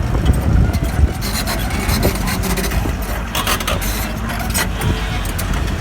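Excavator diesel engine running with a steady low rumble, with irregular clicking and scraping on top.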